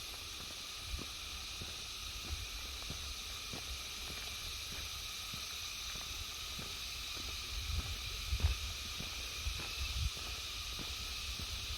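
Footsteps walking on a road at about two steps a second, with some low rumble of wind on the microphone. A steady high hiss of forest insects runs under them.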